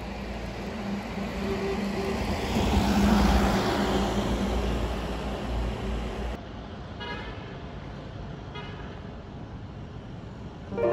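City street traffic noise from passing motor vehicles, swelling loudest as one vehicle passes about three seconds in, then quieter traffic noise with a couple of faint horn toots.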